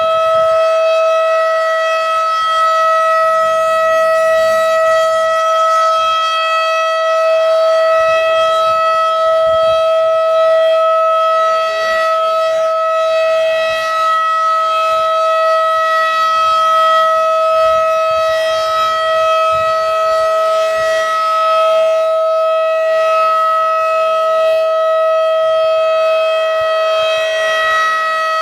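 Federal Signal 2001-DC outdoor warning siren sounding a steady tone during a siren test. It holds one unchanging pitch, loud, with only slight dips in loudness.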